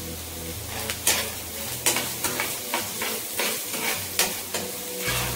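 Metal spoon stirring and scraping onions, capsicum and roasted peanuts around a non-stick kadai, about two to three scrapes a second, over a steady sizzle of frying in oil.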